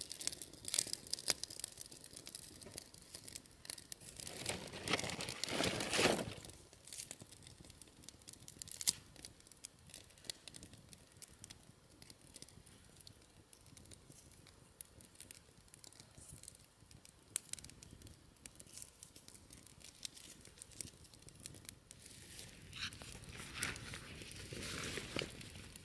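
Close rustling and tearing sounds of hands handling things, loudest about four to six seconds in and again near the end, with scattered small ticks between.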